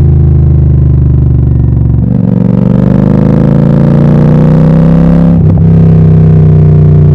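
Royal Enfield Super Meteor 650 parallel-twin engine running loud through an aftermarket Gursewak exhaust with the dB killers removed. It holds a steady note, climbs slowly in pitch from about two seconds in, breaks briefly at about five and a half seconds, then holds steady again.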